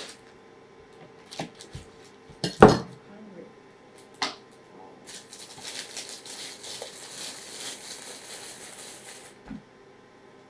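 A few sharp knocks of kitchenware on the table, the loudest about two and a half seconds in, then a plastic bread bag crinkling for about four seconds as burger buns are pulled out of it.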